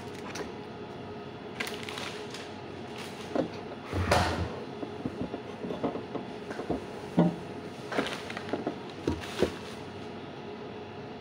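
Thin pastry wrappers rustling and tapping as they are handled and folded by hand, with a louder knock about four seconds in and scattered clicks after it, over a steady background hum.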